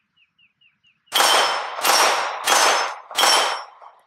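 Four shots from a Glock 43 9mm pistol, about two-thirds of a second apart, each with the ring of a steel target being hit. The first shot comes about a second in.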